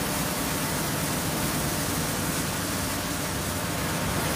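High-pressure washer jet spraying onto large rubber tyres on a mesh conveyor: a steady hiss with water splashing and running off the belt.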